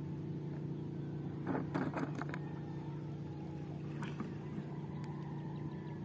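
A boat engine running with a steady drone. A quick cluster of short knocks and clicks comes about one and a half to two and a half seconds in, and one more about four seconds in.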